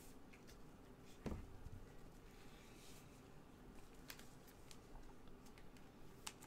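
Near silence with faint handling noise from trading cards: a soft bump just over a second in, a brief rustle, and a few light clicks as the cards are picked up and moved.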